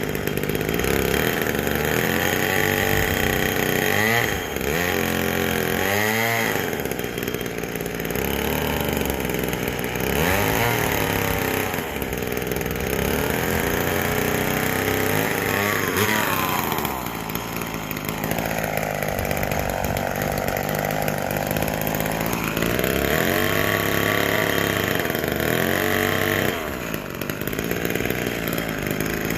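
McCulloch Mini Mac 120 two-stroke chainsaw running while cutting into a pumpkin. Its engine pitch rises and falls again and again as it is throttled up and eased off, with a lower, steadier stretch a little past the middle.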